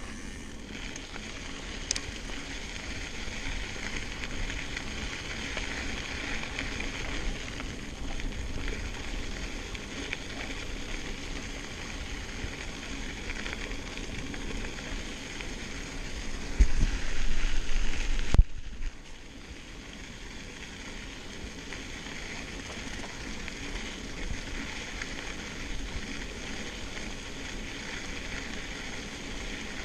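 A 2014 Giant Trance Advanced SX mountain bike rolling along a gravel dirt trail, its tyres crunching in a steady hiss-like noise. Past the middle there is a louder low rumble for about two seconds that cuts off suddenly.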